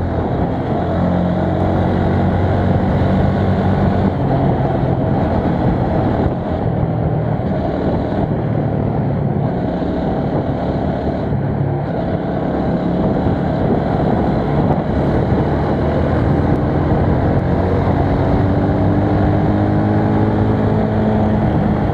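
Heavy wind buffeting on an action camera's built-in microphone while riding a motorcycle, a dense, low rumble that drowns everything else. The motorcycle engine's hum shows through underneath, rising in pitch near the end as it speeds up.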